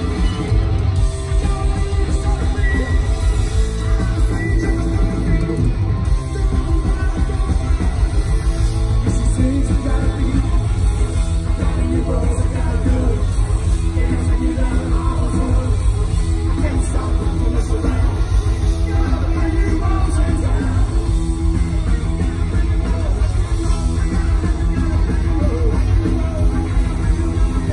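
Punk rock band playing live and loud: electric guitar, bass guitar, drums and keyboards, with a male singer.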